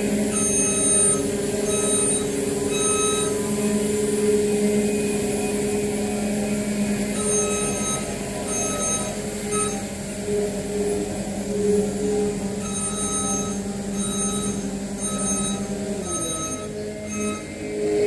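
Cat 299D3 XE compact track loader's diesel engine running steadily while its backup alarm beeps in runs of several beeps with pauses between, as the machine reverses. The engine sound falls away near the end.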